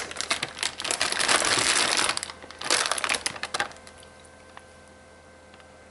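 Plastic rotisserie-chicken bag crinkling as it is handled and tipped to pour out its juice, in two spells of crackling rustle over the first three and a half seconds.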